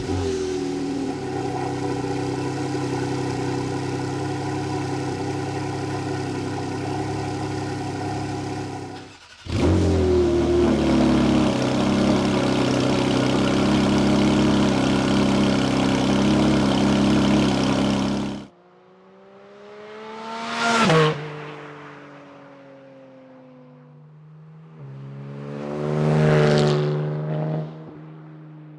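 Porsche 718 Cayman GT4 RS flat-six fitted with a Fi-Exhaust valved system. It starts up twice, each time with a flare whose pitch falls and settles into a loud, steady fast idle. In the quieter second half it revs up and back down twice.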